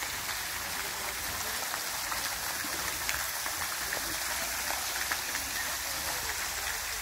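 Water falling and splashing steadily in an illuminated fountain cascade, a constant rushing hiss with small drop ticks scattered through it.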